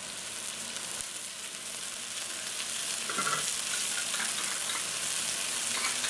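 Shrimp stock and vegetable aderezo sizzling and bubbling in a stainless steel pan as it comes up to the boil, a steady crackling hiss that grows gradually louder.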